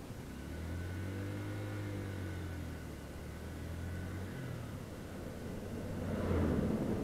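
Motor vehicle engines in slow traffic: a steady low engine hum for several seconds, then a louder rush of engine noise near the end while passing close alongside a semi-truck.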